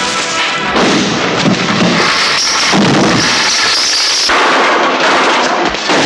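Film fight-scene sound effects: a dense, loud run of bangs, crashes and crackling impacts. A brighter, hissing stretch runs from about two seconds in to past the middle.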